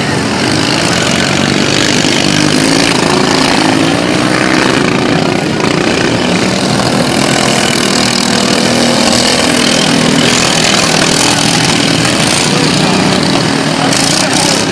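Engines of several racing lawn mowers running together, their pitch wavering up and down as they race.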